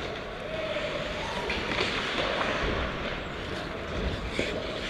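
Ice skates gliding and scraping on the rink, heard through a helmet-mounted camera's microphone with wind rushing past as the wearer skates.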